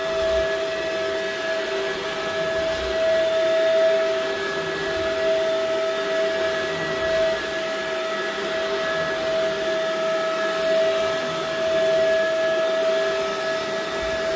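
Shark upright vacuum cleaner running on a thick area rug: a steady motor whine over the rush of suction air, unchanging as it is pushed back and forth.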